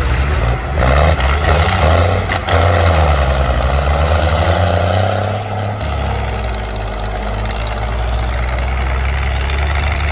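Dutra tractors' diesel engines revving hard under heavy load, the pitch sliding up and down during the first few seconds. They then settle into a steady, deep, full-throttle run.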